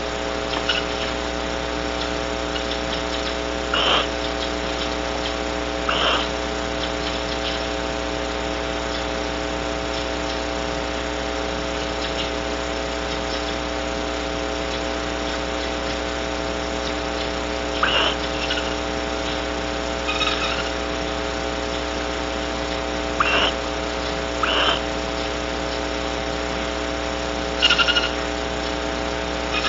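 Barn owls giving short calls in the nest box, about eight scattered through half a minute, some in pairs a second or two apart. They sound over the steady electrical hum of the nest-box camera's microphone.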